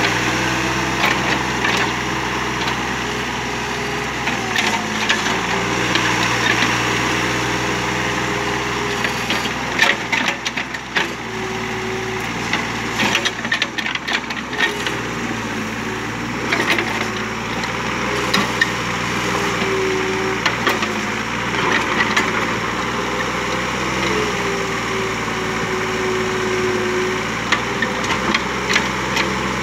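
Kubota KH-027 mini excavator's engine running steadily. Its note rises and shifts now and then as the arm and bucket work. Scattered clatters and knocks come from the bucket scraping and spreading stony soil, thickest around the middle.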